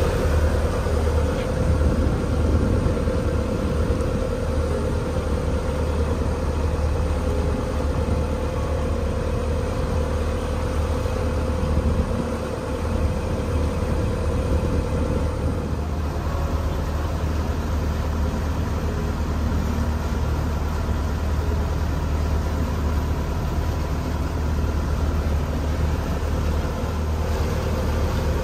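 A small Rhine passenger ferry's engine runs steadily under way with a deep, even hum. A higher steady tone in it stops about halfway through. Over the hum there is a steady rush of water and wind.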